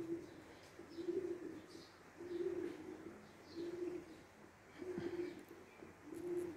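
A dove cooing faintly: a short, low note repeated about every second and a quarter, six times. There is a light tap about five seconds in.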